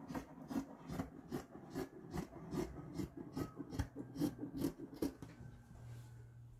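Scissors cutting through a doubled layer of fabric: a steady run of snips, about two or three a second, stopping about five seconds in.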